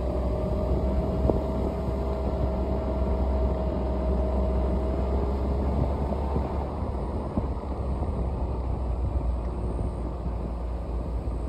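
Steady low rumble of a car driving on a paved road: engine and tyre noise, with a faint steady whine that fades out about halfway through.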